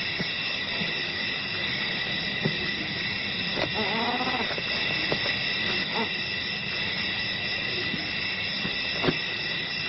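Night insect chorus, a steady high-pitched drone. About four seconds in, a short wavering animal call rises and falls in pitch for under a second. A few faint knocks are heard, the clearest near the end.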